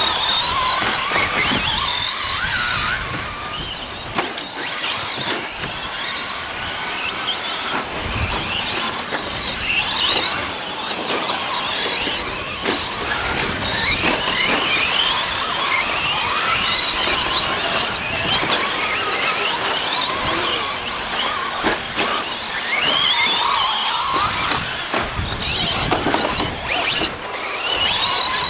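Several 1/10-scale 2WD short course RC trucks racing, their electric motors whining in many overlapping pitches that keep rising and falling as they accelerate and brake. Scattered clicks and knocks run through it.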